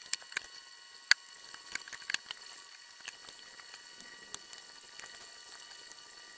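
Irregular crackles and sharp clicks over a faint steady whine, from a metal probe touched to the transistor collectors on a Columbia 2692 8-track player's powered amplifier board. The clicks come thick in the first two seconds, then thin out.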